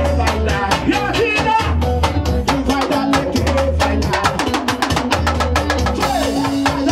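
Live band music with a fast, steady drum beat, a repeating bass line and electric guitar, and a male singer singing into a microphone.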